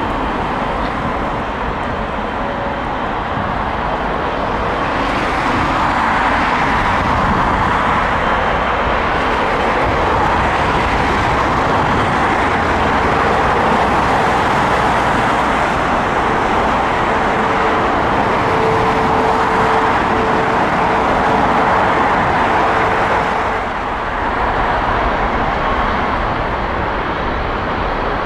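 Jet engines of a British Airways Airbus A350 under thrust as it rolls away down the runway. The loud, steady roar swells about five seconds in, holds, and dips briefly near the end.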